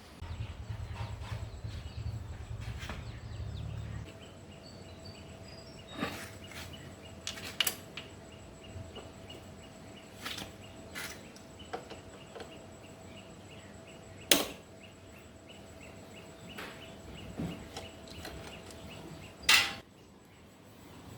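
Workshop handling of motorcycle parts and tools: a low motor hum for the first four seconds, then scattered clicks and knocks, with two sharp metallic impacts about fourteen and nineteen seconds in.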